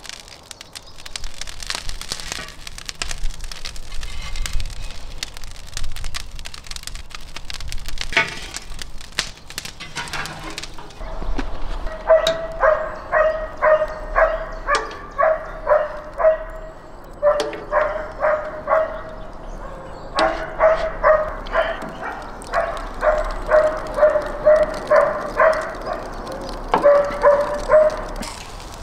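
Burning coals crackling, with clicks and scrapes as they are stirred with a metal poker in a grill-stove's firebox. Partway through, a dog starts barking over and over, about two barks a second in runs of several.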